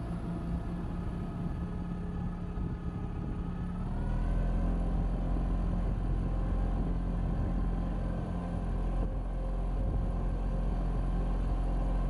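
Suzuki outboard motor running steadily, pushing the barge along; about four seconds in its pitch steps up and it gets louder as it speeds up, then holds at the higher speed.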